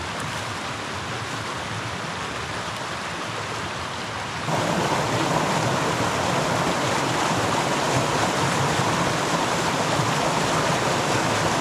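Creek water rushing over rocks, a steady wash of noise. About four and a half seconds in it jumps louder all at once.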